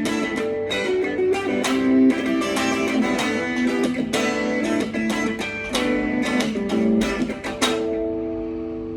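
Solo guitar playing a fingerpicked melodic passage with quick plucked notes, ending about three-quarters of the way through on a final chord that rings out and slowly fades.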